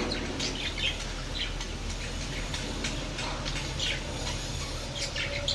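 Budgerigars chirping and chattering in many short, scattered calls over a low steady hum.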